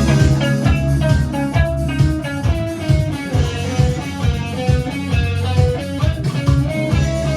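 Live indie rock band playing an instrumental intro: electric guitar picking a melody over bass guitar and a steady drum beat.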